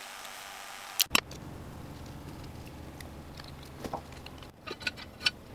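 A steady hiss, then two sharp knocks in quick succession about a second in, followed by a few lighter clicks and taps near the end.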